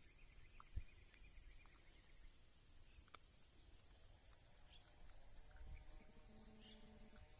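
Steady high-pitched buzzing of an insect chorus, with a dull thump about a second in and a sharp click around three seconds.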